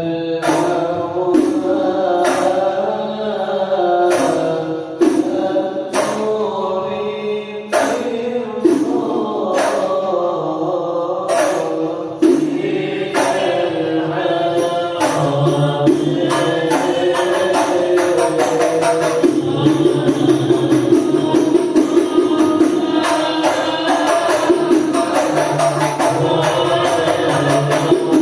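Shalawat devotional singing accompanied by hadroh frame drums. The drum strikes are sparse at first and turn into busy, rapid drumming about halfway through.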